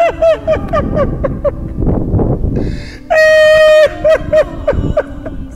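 Grief-stricken crying and sobbing: short broken cries, then about three seconds in a long, drawn-out wailing call of the name "Shabana".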